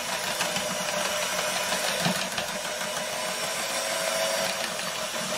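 Electric hand mixer running steadily, its beaters whisking Yorkshire pudding batter in a bowl.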